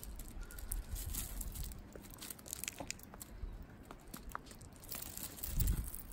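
Light crunching and scattered clicks of paws and feet on gravel and crusted snow, with a low rumble that swells near the end.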